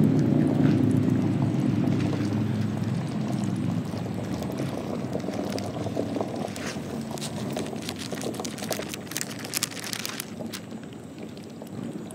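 A passing engine's steady hum that fades away over the first few seconds. About halfway through come many small splashes and clicks, fitting mallards dabbling for food at the water's surface.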